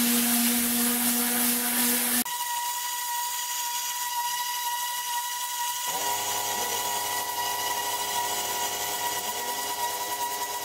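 Tornador Black air-powered cleaning gun blasting compressed air and tap water into carpet: a loud hiss with a steady whirring hum that cuts off abruptly about two seconds in, leaving a quieter hiss with a high, steady whine. About six seconds in, a low motor hum starts up alongside: the air compressor switching on.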